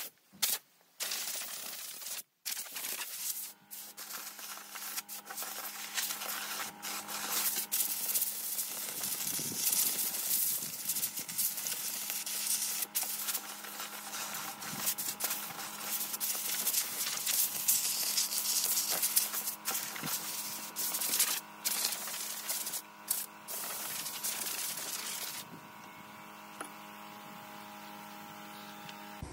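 Handheld electric grinder or sander working a paulownia wood slab, a steady motor hum under a hissing grind. It starts and stops in short bursts at first, then runs on continuously; near the end the hissing drops away and only a quieter hum is left.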